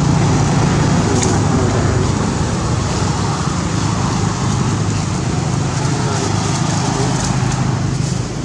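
Steady low rumble of a running engine, as from a motor vehicle.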